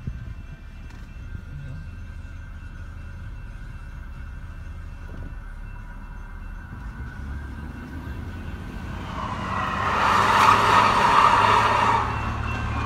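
A steady low engine idle inside a car's cabin. From about nine seconds in, a light-rail train passes close by with a loud rushing that lasts about three seconds, then drops back.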